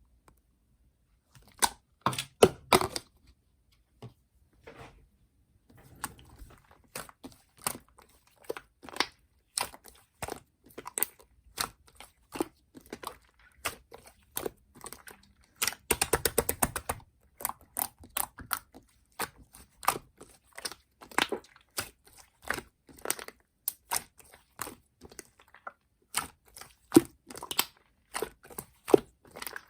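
A string of irregular sharp clicks and taps, with a fast run of them about sixteen seconds in.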